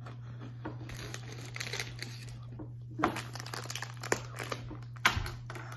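Plastic snack bag crinkling as it is handled, in irregular crackles, over a steady low hum.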